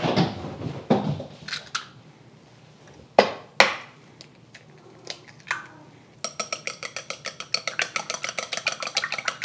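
Eggs cracked into a ceramic bowl: a few separate sharp taps and clicks of shell against the bowl. About six seconds in, chopsticks start beating the eggs in the bowl, a rapid, steady clicking of the chopsticks against the ceramic.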